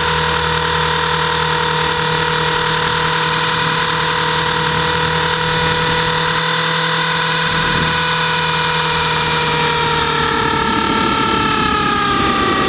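Trex 450-clone RC helicopter's electric motor, drive gears and rotor, heard from a camera on the airframe: a steady high whine that sags in pitch over the last few seconds as the helicopter banks.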